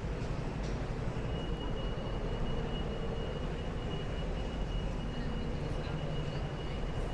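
Steady low city rumble and hiss along a wet street, with a thin, steady high whine that starts about a second in.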